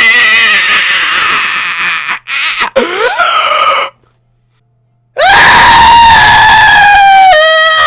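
Extremely loud high-pitched screaming used as an earrape meme joke. A long scream breaks off suddenly about four seconds in, there is a second of silence, and then another long held scream drops a step in pitch near the end.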